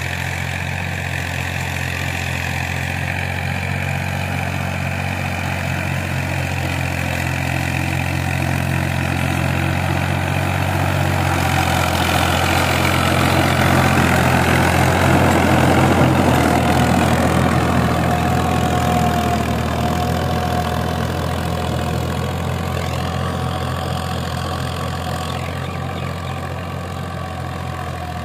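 Tractor's diesel engine running steadily, growing louder toward the middle and then fading again.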